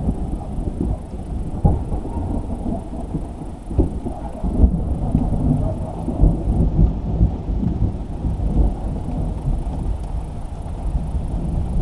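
Thunder rumbling continuously in a strong thunderstorm, a deep rolling sound that swells and fades in waves before cutting off suddenly at the end.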